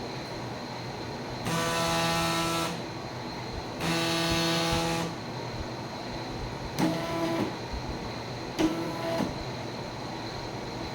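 Stepper motors of a DIY belt-driven CNC laser driving the gantry, each move a steady pitched whine. There are two longer moves of a bit over a second each, then two short moves about two and four seconds later whose pitch slides at the start and end. A steady fan-like hiss runs underneath.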